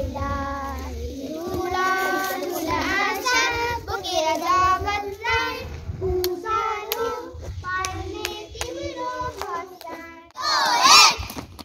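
A child singing a song without accompaniment, in long held and gliding phrases, with a few sharp taps in the middle. Near the end a louder, higher child's voice calls out.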